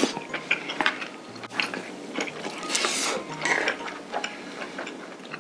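Close-up eating sounds: slurping and chewing a mouthful of saucy stir-fried webfoot octopus, with wooden chopsticks clicking against the bowl and the pan, over light background music.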